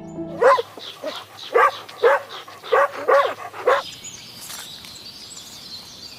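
Dog barking, about six short barks over three and a half seconds, followed by a faint hiss.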